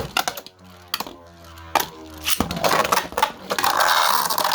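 Hard plastic Beyblade parts clicking as they are handled and fitted together: a few separate clicks, then a dense run of rapid clicking and rattling from about two and a half seconds in.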